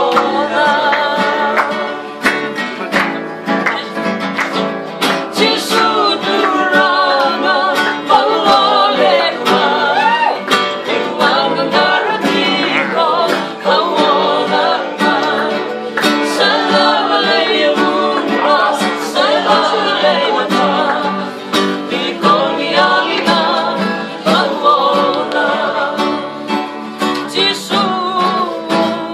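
Two acoustic guitars strummed in a steady rhythm while a group of men sing together.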